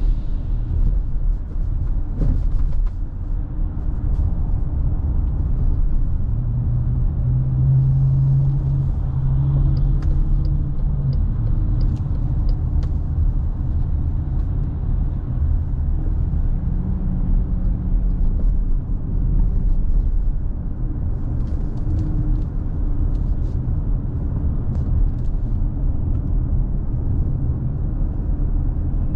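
Car being driven: a steady low rumble of engine and tyres on the road. A stronger humming tone comes in from about seven to eleven seconds in, with a few faint ticks scattered through.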